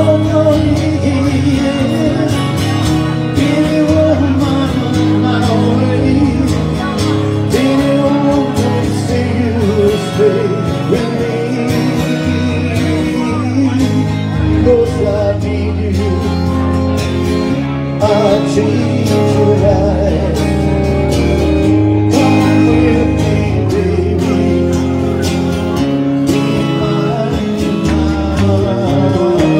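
Live amplified music: a man singing into a microphone while playing an electric guitar, over steady low notes.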